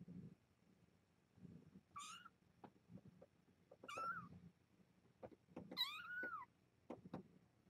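Young kittens, about three and a half weeks old, mewing faintly: three high-pitched calls about two seconds apart, the last one longer and rising then falling in pitch.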